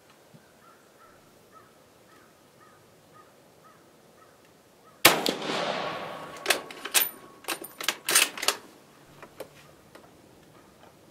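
A single shot from a 6.5mm Carcano M38 short rifle firing a cast-bullet load, about five seconds in: a sharp crack whose echo dies away over about a second. Then a quick run of sharp metallic clicks and clacks as the bolt is worked to eject the case and chamber the next round.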